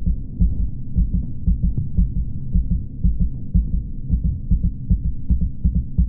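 Low, fast throbbing pulses like a racing heartbeat, a horror-film sound effect, over a faint steady hum.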